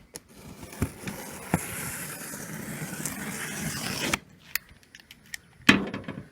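Cardboard parts box being opened by hand: a scraping, rustling noise of tape and packaging for about three seconds, then scattered clicks and a single thump near the end.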